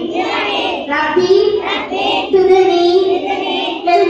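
A young girl's voice chanting a prayer into a microphone, in long held notes that glide between pitches with short breaks for breath.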